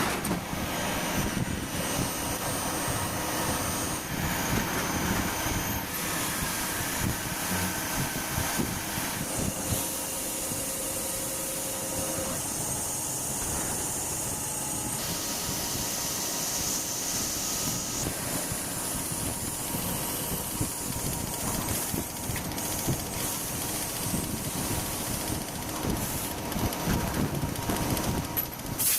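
CNC lathe running as it turns a metal calibration weight: a steady mechanical hiss with irregular light knocking and rattling, its character shifting abruptly several times as the cut changes.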